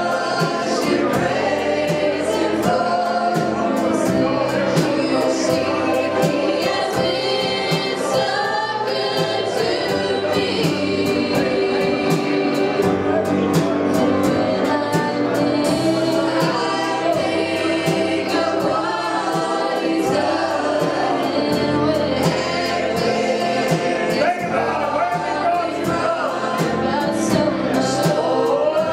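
Group of voices singing a gospel song with live band accompaniment, drums and cymbals keeping a steady beat.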